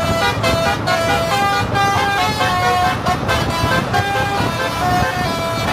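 Truck's telolet musical air horn playing a tune of short held notes that step up and down in pitch, over a continuous low engine rumble.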